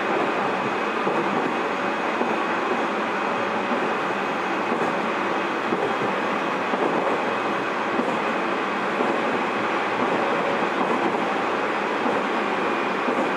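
Inside a Tobu 30000 series electric commuter train's motor car, running steadily: a continuous rumble of wheels on rail with a faint steady high tone above it.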